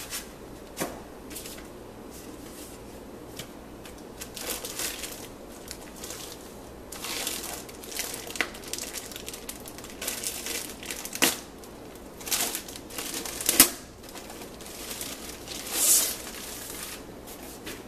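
Clear plastic bag crinkling and rustling as it is pulled off a laptop, in irregular handfuls with a few sharper, louder crackles in the second half.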